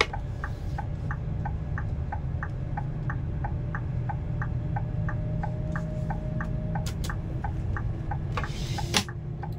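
Low engine and road rumble inside a moving car, with the turn-signal indicator clicking in an even tick-tock, about four clicks a second, that stops a little before the end. A short rushing noise and a thump come just before the end.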